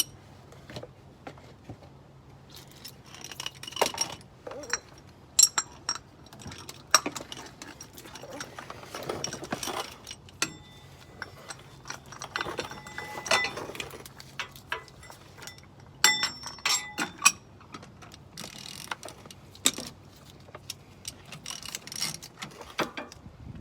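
Irregular metallic clinks, clicks and scrapes as a new spin-on oil filter is threaded onto a 5.9 Cummins diesel by hand from underneath, with a quick run of clicks about 16 seconds in.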